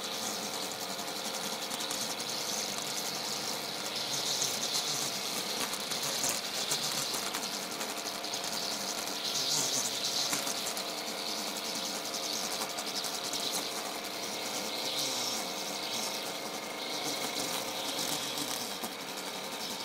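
A handheld power tool running steadily as it is worked over brick paving. It gives a continuous buzz under a hiss that swells and eases every few seconds.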